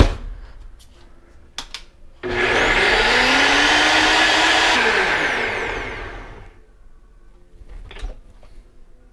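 NutriBullet Rx blender motor starting abruptly about two seconds in, whirring with a rising pitch as it spins up and blending the green smoothie for a couple of seconds. It then winds down over about two seconds, its pitch falling. A few knocks and clicks come from the plastic cup being seated before it starts and handled afterwards.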